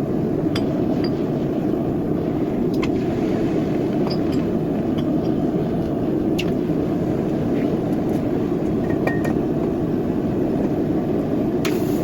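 Vevor smelting furnace running with a steady roar, with a few light metallic clinks over it.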